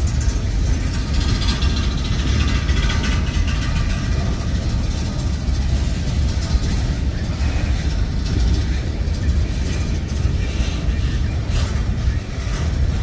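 Freight cars of a Norfolk Southern manifest train rolling past: a steady heavy rumble of steel wheels on rail, with clatter and a few sharp knocks near the end.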